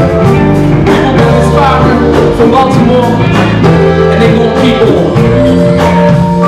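Live band playing a song: drum kit, keyboards and guitar, loud and steady, with regular drum hits.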